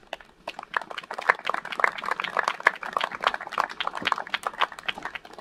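A small audience clapping, many irregular claps that build up about half a second in and fade near the end.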